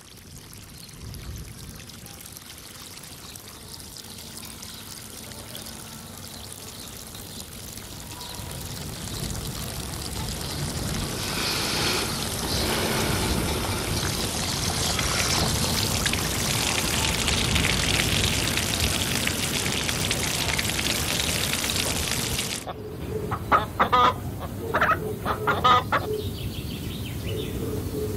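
A steady rushing noise that grows gradually louder, then cuts off suddenly near the end. Hens clucking in short, irregular bursts follow.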